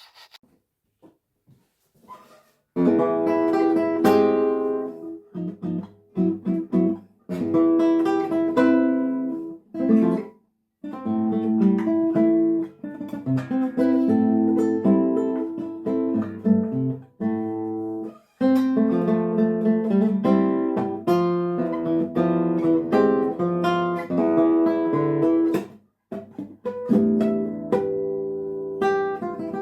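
Solo acoustic guitar playing a restless piece, chords and plucked note runs in short phrases broken by brief pauses. It comes in about three seconds in.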